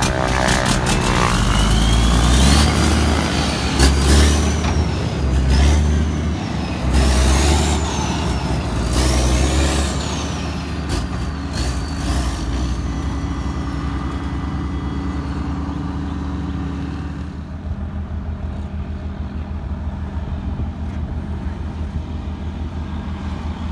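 Diesel engine of a cab-over dump truck pulling away under load, shifting up through its gears: a whine climbs and drops with each shift four or five times. After about ten seconds it fades into a quieter, steady rumble of passing trucks.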